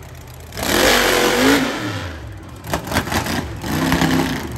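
Monster truck engine revving hard, its pitch rising and falling, with a quick run of sharp knocks and clatter about three seconds in before the engine surges again.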